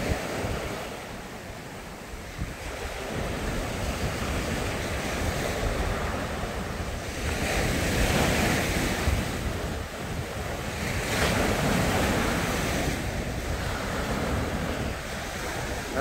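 Sea surf breaking and washing up a sandy beach, a continuous rush that swells louder twice in the second half as bigger waves come in, with wind buffeting the microphone.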